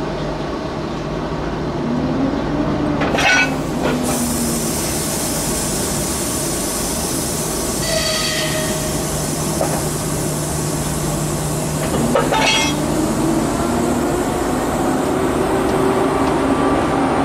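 EP2K diesel passenger locomotive running with a steady low hum, its engine revving up twice as it draws away from the uncoupled train. A steady hiss of air comes in about four seconds in, and there are a few short, high-pitched tones.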